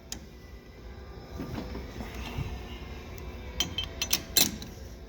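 A few sharp metallic clinks from handling metal parts and tooling at a lathe, the loudest about three and a half and four and a half seconds in, over a low steady shop hum.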